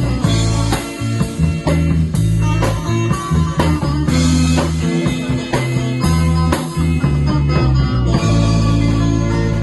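Kugiran band playing live: electric guitars picking the melody over a bass guitar line and drum kit. About eight seconds in the band lands on a held chord that rings on.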